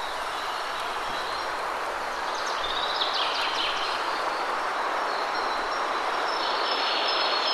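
Waterfall rushing steadily, with birds chirping over it: a quick flurry of chirps about three seconds in and a high, held whistled note near the end.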